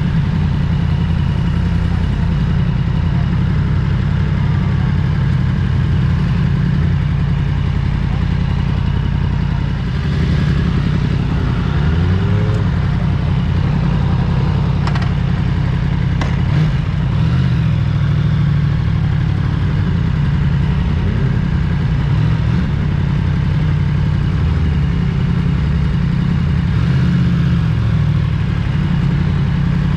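Motorcycle engine running, a steady low drone, with a few brief clicks around the middle.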